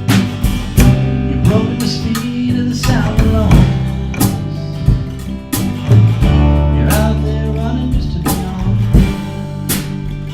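A small band playing a country-folk song: guitar over bass, with drums striking a steady beat and a melody line that bends in pitch.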